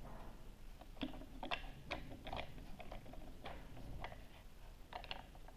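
Irregular light clicks and taps of the hard plastic parts of a Play-Doh Diggin' Rigs cutter toy being handled, starting about a second in with a quick run of a dozen or so clicks.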